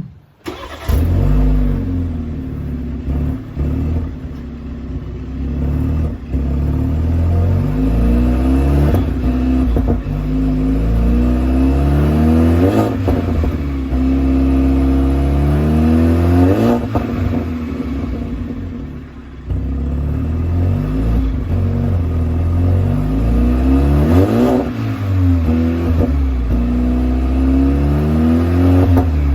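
BMW G21 320i's turbocharged four-cylinder engine cold-starting about a second in, then idling with several throttle blips whose revs rise and fall, with a few pops. The cold engine is slow to respond to the throttle and sounds a bit weird.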